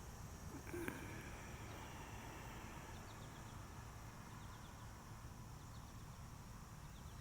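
Faint outdoor ambience: a steady low rumble and a steady high-pitched hum, with a brief sound about a second in.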